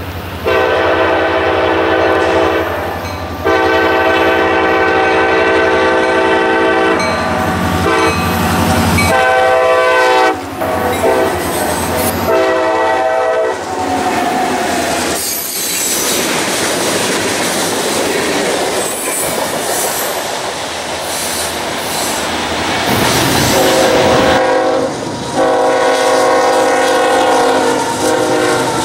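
Diesel freight locomotive's multi-note air horn sounding two long blasts, a short and a long, the grade-crossing signal, as the train approaches. The train then passes with engine rumble and wheels clacking over the rail joints, and near the end the horn sounds two more long blasts at a crossing.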